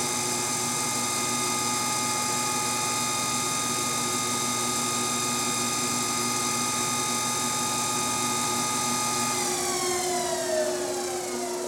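Ransome Model 60P welding positioner's electric drive motor and gear train running with a steady whine. About nine seconds in it is switched off and the whine falls in pitch as it coasts down, with a brief knock soon after.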